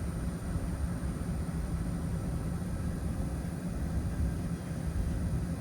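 Steady low rumble of a 2008 GMC Sierra pickup idling, with the even hiss of its climate-control blower running.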